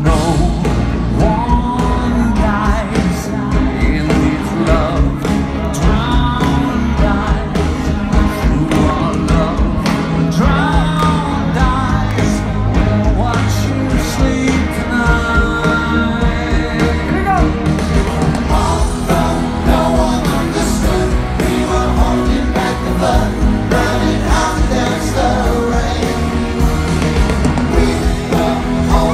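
A pop band playing live, with a male lead singer over drums and band, heard from within the festival crowd.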